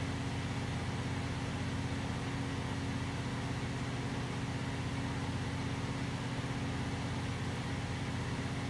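A steady low machine hum with an even hiss, unchanging, like a fan or ventilation unit running.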